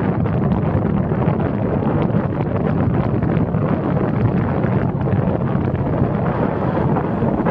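Steady wind rumble on the microphone of a camera mounted on a moving car's roof, mixed with the car's road and tyre noise.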